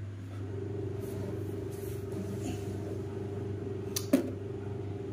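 A steady low mechanical hum, joined about half a second in by a steady higher drone, with two sharp clicks close together about four seconds in.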